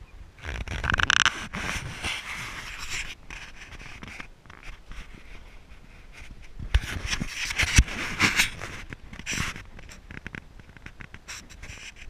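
Handling noise from a handheld camera: rubbing and scraping against the microphone in irregular bursts as the camera is turned, loudest about a second in and again around seven to nine seconds in.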